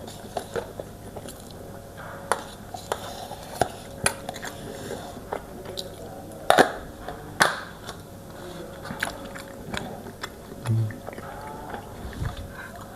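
Close-up chewing and mouth sounds of someone eating eggs: irregular wet smacks and clicks, the two loudest about six and a half and seven and a half seconds in.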